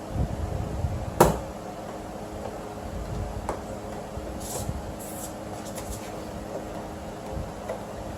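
Plastic retaining clips of a car's interior door trim panel popping loose as the panel is pried off with a trim tool: one sharp snap about a second in, then several fainter clicks and scrapes of plastic.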